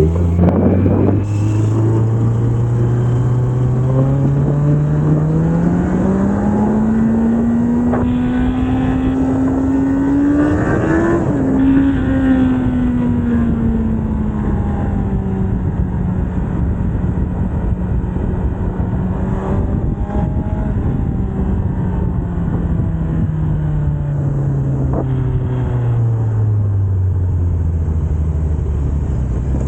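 Kawasaki Z900's stock inline-four engine under way, its note climbing steadily for about ten seconds before a sudden drop at a gear change. It then holds steady and slowly winds down near the end, over constant wind and road noise.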